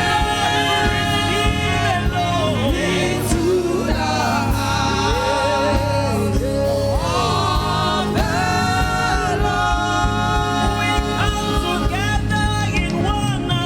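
Live gospel praise-and-worship music: voices singing long held notes with vibrato over steady instrumental accompaniment.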